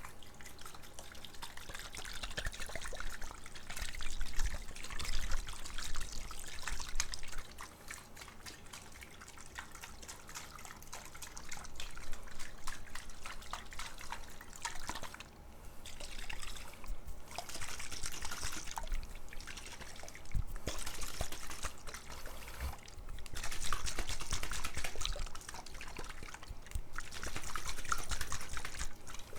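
Water pouring and trickling in several spells of a few seconds each, with small clicks and splashes in between.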